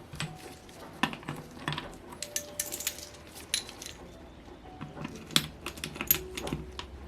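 Irregular light metallic clicks and clinks of small hand tools and metal engine parts being worked on a bench, the louder clink about five seconds in.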